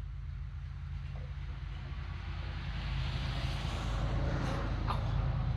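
An engine running with a low pulsing rumble, growing gradually louder, with a rising hiss over the second half.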